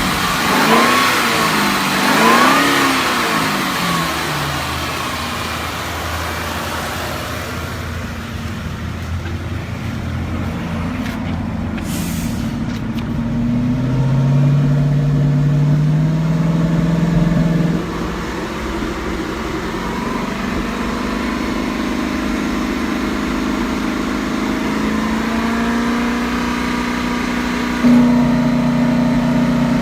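Supercharged 5.0-litre V8 of a Ford FPV GS running: revved up and down a few times at the start, then settling to idle, with revs raised and held for a few seconds midway and lifted again near the end.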